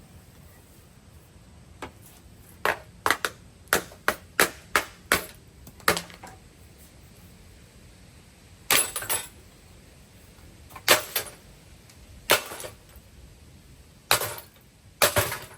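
A Hampton Bay Farmington ceiling fan being smashed apart: sharp breaking blows and cracks, about eight in quick succession in the first six seconds, then single crashes every second or two, some with a short rattle of breaking pieces.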